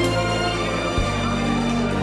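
Background music of sustained chords over a steady bass, with the chord changing about a second in.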